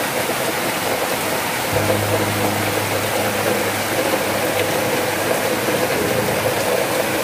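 Steady rushing noise, like hiss or rain, with a low held drone of background music coming in about two seconds in.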